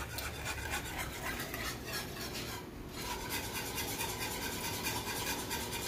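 Wire whisk stirring thick Alfredo sauce in a saucepan: a steady run of quick scraping strokes against the pot.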